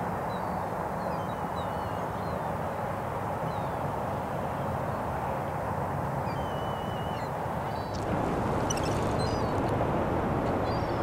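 Steady outdoor riverside ambience, a low even noise, with faint, short bird calls scattered through it. About eight seconds in, the background gets louder and a few faint high ticks come in.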